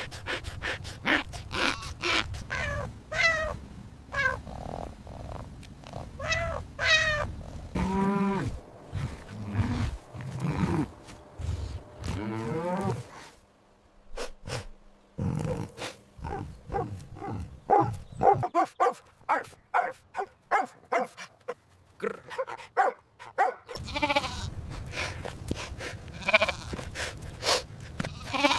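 A series of recorded farm-animal calls, mostly bleating with wavering pitch, broken by short pulsed calls and quiet gaps.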